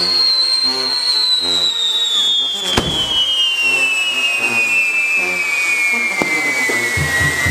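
Castillo fireworks burning: a long whistle slowly falling in pitch over the hiss of burning pyrotechnics, with one sharp crack about three seconds in and a weaker one near the end.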